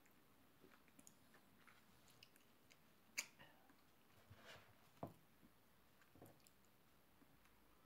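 Near silence with a few faint, short clicks and light knocks from a cup and spoon being handled and set down, the sharpest click about three seconds in and a duller knock about two seconds later.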